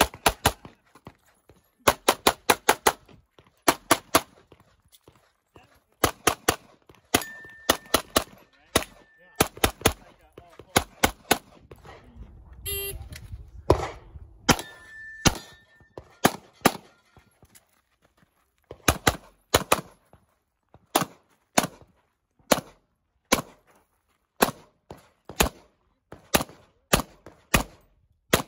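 STI DVC-L .40-calibre pistol firing rapid strings of shots, mostly in quick doubles, with short breaks between strings as the shooter moves between positions during a stage.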